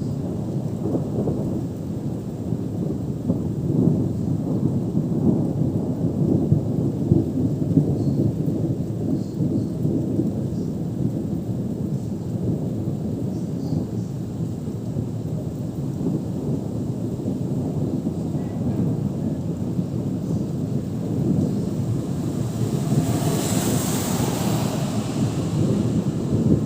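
Thunderstorm: a steady downpour of rain with a low, continuous rumble. Near the end a brief louder hiss swells up and fades.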